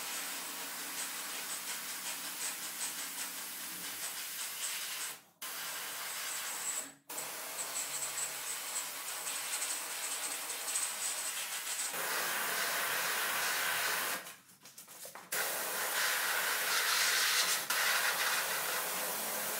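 Compressed-air paint spray gun at low pressure (1 bar, fluid and fan turned to minimum) hissing steadily as it sprays paint. It stops briefly three times, the last time for about a second, and it is louder in the later part.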